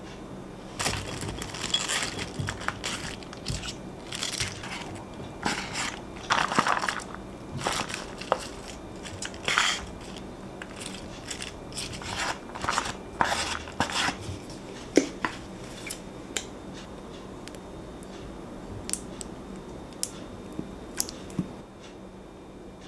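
Crisp lettuce and salad leaves rustling and crunching as they are tipped and pushed with chopsticks from a takeout tray into a ceramic bowl, with light clicks of the chopsticks and tray against the dish. The crunching comes in busy bursts for the first dozen or so seconds, then gives way to a few scattered clicks.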